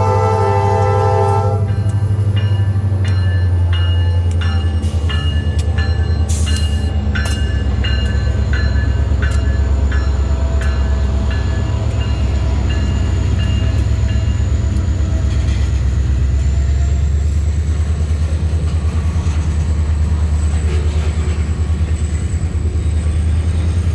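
An EMD GP40-2 diesel locomotive pulls a train out, its turbocharged V16 engine rumbling deeply throughout. Its air horn chord cuts off about a second and a half in. A locomotive bell then rings at an even pace until about halfway through.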